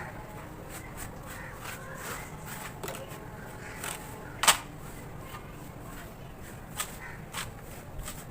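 Scattered sharp taps and clicks on a hardened cement cake, a handful of light ones and one loud crack about halfway through, over a steady background hiss.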